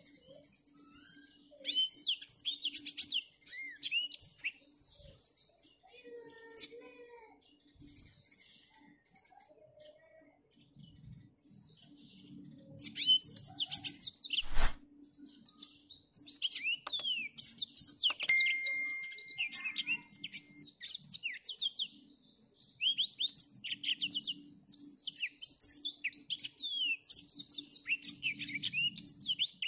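Black-throated canary singing: rapid, high twittering phrases, a short burst about two seconds in, then song from about twelve seconds on that runs almost without a break to the end. A single sharp knock about halfway through.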